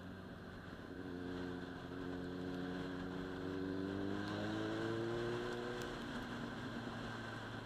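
Sportbike engine accelerating, its note rising steadily in pitch for about five seconds and then dropping back, over a steady lower engine drone.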